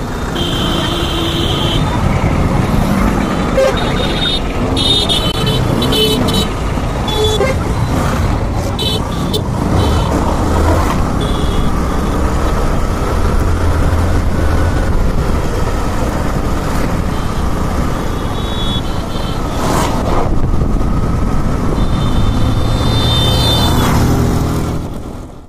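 Motorcycle riding through traffic: steady engine and road noise, with vehicle horns sounding many short honks along the way.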